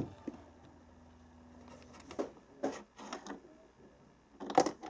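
Knocks and scrapes of a cat moving about a wooden shelf unit and a plastic storage box. A sharp knock comes at the very start, a few softer knocks follow two to three seconds in, and a louder clatter comes near the end.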